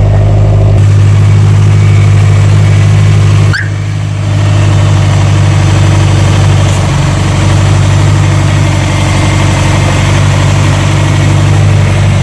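2004 Subaru WRX's flat-four engine idling steadily, with the air conditioning just switched on. There is a brief dip in level about three and a half seconds in.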